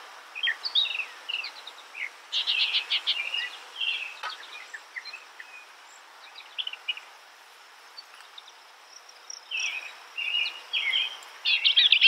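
A songbird singing in separate phrases: fast runs of repeated notes, short whistles and chirps, with a lull of about two seconds midway and a fast run again near the end.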